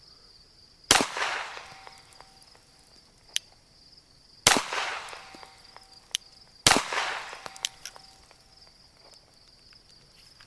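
Three 9mm pistol shots from a Glock 34, each a sharp crack with a short echo: one about a second in, then two more about four and a half and six and a half seconds in. Fainter clicks fall between the shots.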